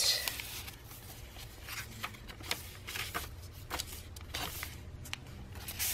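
Tea-dyed paper pages of a handmade hardcover journal being turned and handled: irregular short paper rustles and soft flicks.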